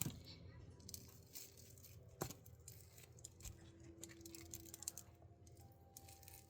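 Faint scattered rustles and small clicks of hands handling a sandwich, pushing the ham back into the middle of the bread, with one sharper click about two seconds in.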